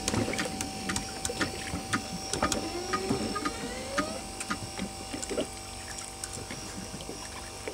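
Electric fishing reel winding in line from deep water with a steady whine, over scattered clicks and light water splashing.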